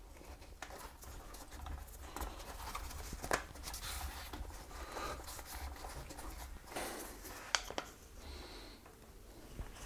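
Faint rubbing and small clicks of a rubber bicycle tire being worked onto the rim by hand, with one sharper click about seven and a half seconds in.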